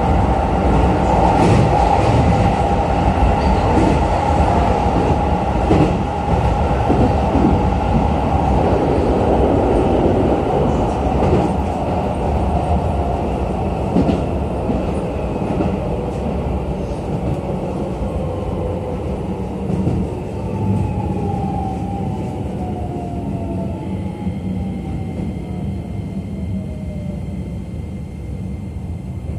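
Keisei New 3000 series electric train heard from inside the passenger car, running along the track with scattered wheel clicks. It gradually gets quieter as it slows, and over the last several seconds the traction motor whine falls in pitch as the train brakes into the station.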